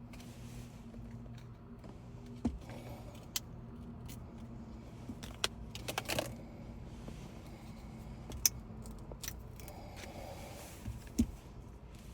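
Scattered light clicks and taps of small metal tools and phone parts being handled on a workbench, about half a dozen spread irregularly, over a steady low electrical hum.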